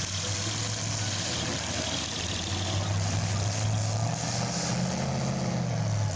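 Full-size demolition derby cars' engines running in a steady drone, the pitch wavering a little.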